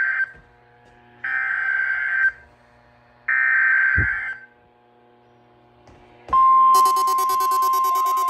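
NOAA Weather Radio SAME header for a Required Weekly Test: the end of one buzzy data burst and two more, each about a second long with a second's gap between. About six seconds in, the steady single-pitch warning alarm tone starts and holds.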